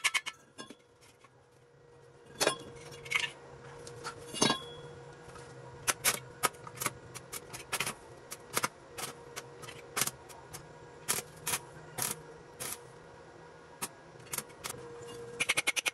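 Arc welder tack-welding the corners of a square steel tube frame: irregular sharp crackles and clicks as the arc is struck and broken, some in quick runs, over a faint steady hum.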